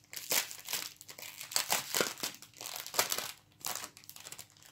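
Small clear plastic bags of diamond-painting drills being handled, crinkling in irregular bursts that thin out near the end.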